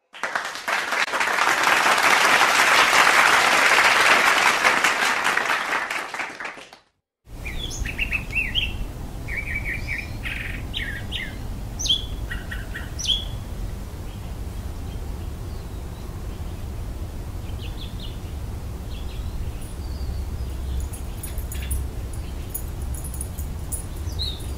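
Audience applauding for about seven seconds, then cut off abruptly. After that, birds chirping in scattered short calls over a low, steady background rumble.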